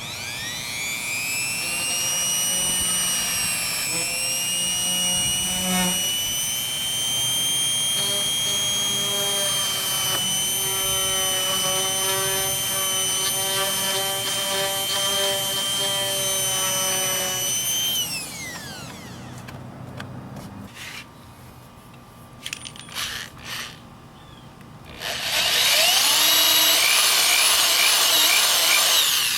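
Rotary tool (Dremel) cutting a hole through motorcycle fairing plastic: it spins up to a steady high whine and winds down after about 18 seconds. A few light clicks follow, then it spins up again near the end, its pitch wavering as it cuts.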